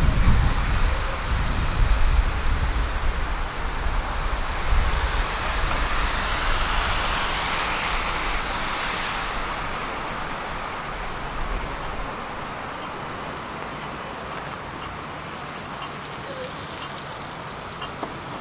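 A large vehicle passing by: a heavy low rumble with a hiss that swells and then fades away over about twelve seconds, leaving a quieter steady background.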